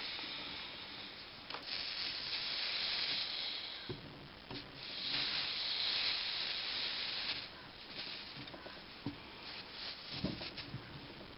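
Phosphoric acid flux sizzling and hissing under a red-hot copper soldering iron tip on stainless steel, in two long swells. Fainter hiss follows, with light clicks and taps near the end.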